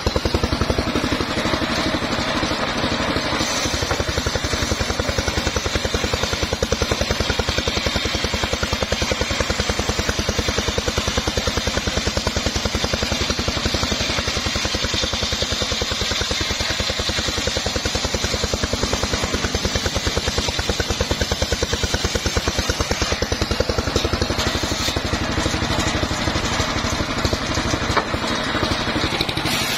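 Engine-driven homemade circular saw bench running steadily while its blade rips a teak log lengthwise into boards, with the engine's rapid, even firing under the hiss of the cut.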